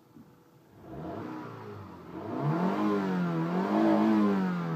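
Honda F20Z1 2.0-litre 16-valve four-cylinder engine running and being revved: it comes in about a second in, climbs in pitch, wavers up and down, and eases back near the end.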